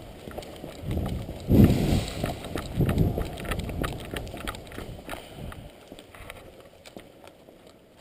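Quick footsteps on a concrete floor with gear and clothing rattling and rustling close to the microphone, heaviest about one to three seconds in, then thinning out to scattered light clicks and taps.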